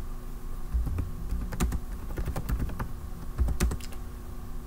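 Typing on a computer keyboard: irregular key clicks, over a faint steady hum.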